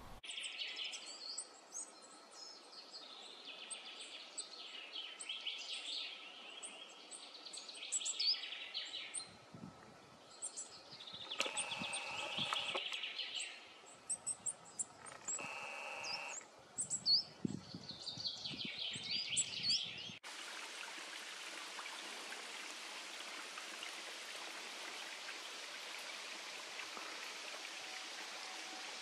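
Coal tits calling with many short, high, thin chirps. About twenty seconds in, this gives way to the steady rush of a small stream running over rocks.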